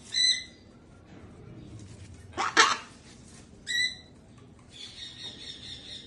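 Pet cockatoo calling: two short, clear squawks, one at the start and one nearly four seconds in. Between them comes a louder harsh burst, and near the end a quieter buzzy chatter.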